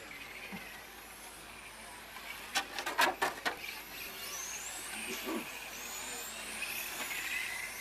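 Small RC racing cars circling the track, a high-pitched motor whine that rises and falls as they speed up, pass and brake. About two and a half seconds in, a short burst of sharp clicks is the loudest sound.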